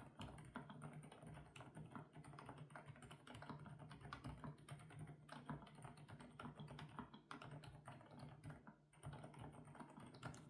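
Steady typing on an FL-Esports OG98 mechanical keyboard with Kailh Coconut Latte switches: a dense run of keystrokes with a short pause near the end.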